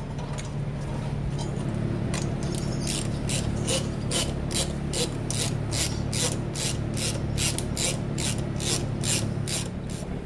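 Hand ratchet wrench clicking in a steady rhythm, about three clicks a second, starting a few seconds in and running for several seconds over a steady low hum.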